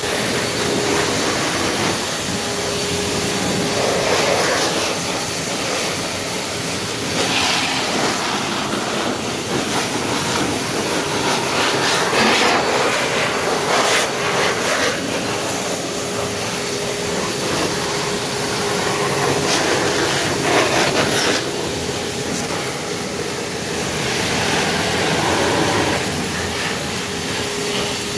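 Self-service car wash air wand blowing pressurized air over a wet car engine to dry it: a steady rushing hiss that swells and eases in loudness, with a faint steady hum beneath it.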